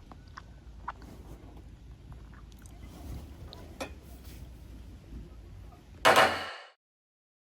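Faint scattered clicks and light knocks over a low background, then one loud sharp clang about six seconds in that rings briefly and is cut off into silence.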